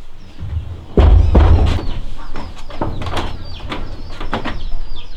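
A loud thud about a second in, then a run of irregular knocks, with birds chirping high throughout the second half.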